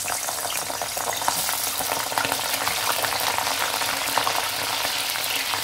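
Cauliflower florets deep-frying in hot oil in a kadhai: a steady, dense sizzle and crackle.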